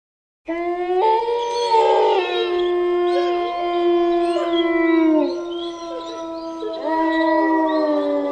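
Wolves howling together, at least two voices overlapping in long held notes. The howls start abruptly about half a second in and slide down in pitch here and there, one sinking lower near the end.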